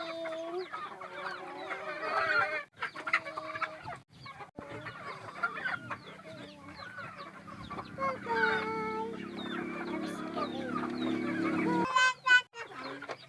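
A flock of chickens clucking and chirping as they crowd round for feed, with a few longer held calls mixed in.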